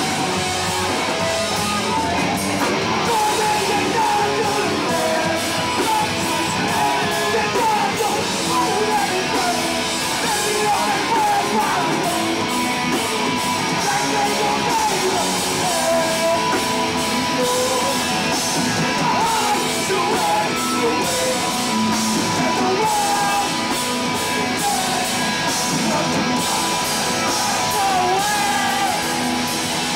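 Live hardcore punk band playing: distorted electric guitars, bass and drums pounding without a break, with a shouted lead vocal.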